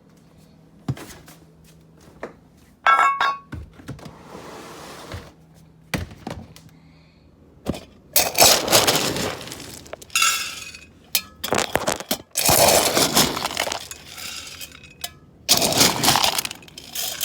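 Hard objects clattering, knocking and clinking in a series of sharp hits and noisy bursts, with a short ringing clink about three seconds in.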